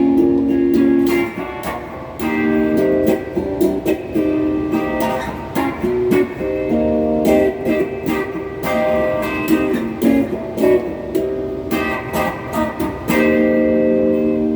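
Donner Q1 strat-style electric guitar strummed in chords through a Crate GX30M amp, ending on a held chord.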